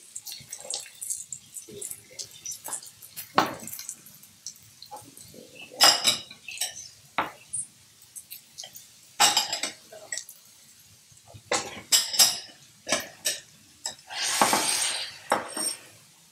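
Ceramic bowls clinking and knocking as they are set out on a wooden countertop, with a wooden spoon scraping food in a skillet: a string of separate sharp clinks and knocks, and a rough scraping sound about a second long near the end.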